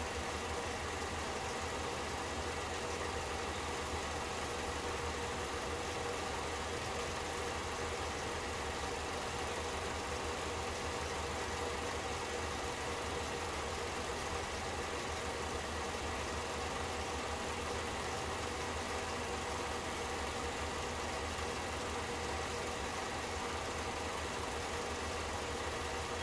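Elmo FP-C Zoom Dual 8mm film projector running, a steady, unchanging mechanical hum.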